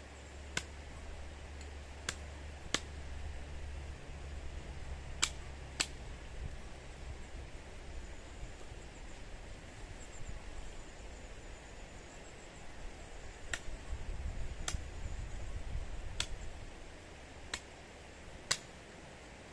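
Irregular sharp knocks of a hatchet chopping at a branch, several in quick pairs about half a second apart, over a low rumble.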